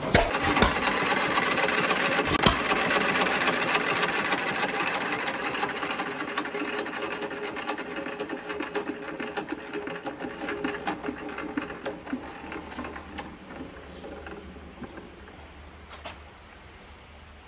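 1923 Fairbanks Morse 1½ hp hit-and-miss engine clattering rapidly, with one loud knock about two and a half seconds in. The clatter then thins out and fades steadily as the flywheels coast down towards a stop.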